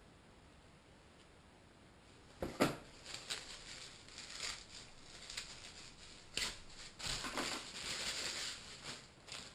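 Carbon fiber quadcopter frame plates being handled: a sharp clack about two and a half seconds in, a few lighter clicks, then a stretch of scraping and rustling near the end.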